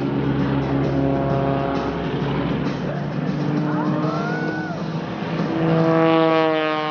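Aerobatic propeller plane's engine running overhead, then a louder pass about five and a half seconds in, with the engine note falling as it goes by.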